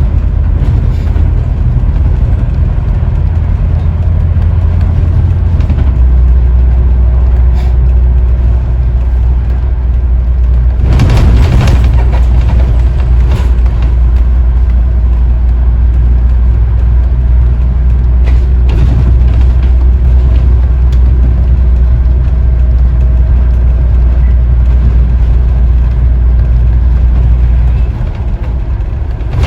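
Scania N94UD OmniDekka double-decker bus heard from on board, its diesel engine running with a loud, steady low drone. The drone drops lower about six seconds in. A brief loud, noisy burst comes around eleven seconds in, and the engine eases off and goes quieter near the end.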